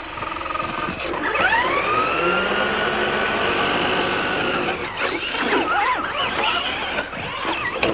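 Radio-controlled car's electric motor whining: the pitch rises as it speeds up about a second in, holds steady for about three seconds, then wavers up and down as the throttle changes.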